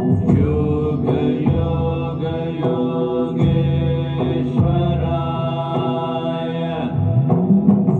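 Mantra chanting set to music: a chanted line in long held syllables that shift pitch about once a second, over a steady drone.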